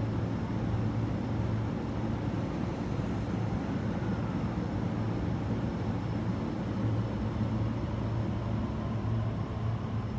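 Railway station ambience: a steady low hum with a background rumble, and no train passing close by.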